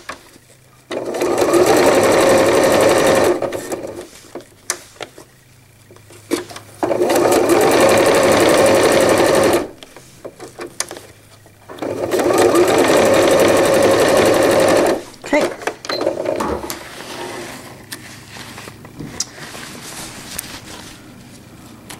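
Electric sewing machine stitching a zipper seam in three runs of about three seconds each, stopping between them, with small clicks and fabric handling in the pauses.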